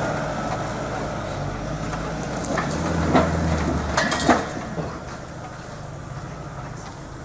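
Nissan Navara D22 ute's engine pulling it up a steep sandy bush track, with a few sharp knocks and cracks about halfway through. After that the engine note drops and fades as the ute moves away up the hill.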